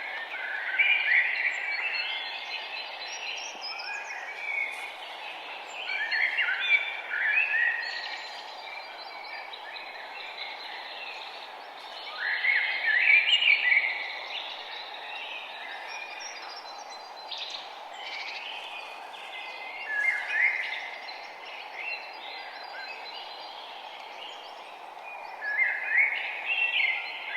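Songbirds singing, a short burst of chirping song every five to seven seconds, over a steady background hiss.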